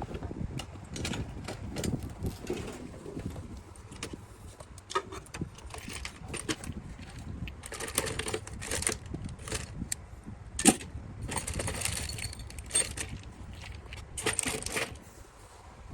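Hands working on a computer case and its metal parts: irregular small clinks, clicks and rubbing, with one sharp click about eleven seconds in.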